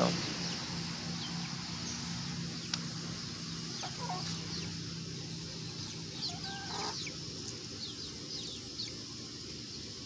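Chickens clucking softly now and then, with a low cluck about four seconds in and another around seven seconds, among scattered faint high chirps over a steady low hum.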